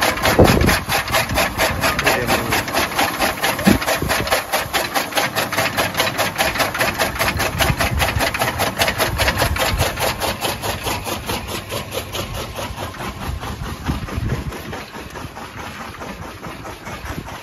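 Electric chaff cutter chopping green fodder: the motor-driven flywheel blades clack in a fast, even rhythm, about five strokes a second. The sound grows quieter in the last few seconds.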